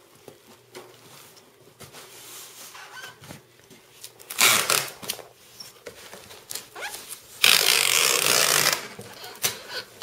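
Packing tape pulled off a handheld tape gun onto a cardboard box: a short rip about four and a half seconds in and a longer rip of about a second and a half about seven and a half seconds in. Between them come the rustle and knocks of cardboard being folded and pressed down.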